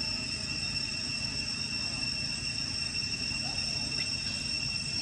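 Steady high-pitched insect drone holding two even tones, over a low continuous rumble.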